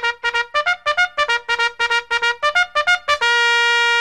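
Music: a run of quick, short staccato notes, about seven a second, then a long held note starting about three seconds in.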